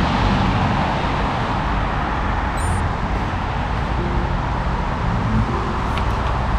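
Wind buffeting the microphone of a camera carried on a run: a steady low rumble with no clear rhythm.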